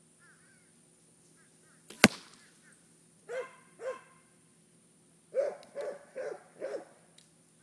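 An arrow strikes a Buckmasters block archery target with a single sharp smack about two seconds in. A dog then barks twice, and a moment later four times in quick succession.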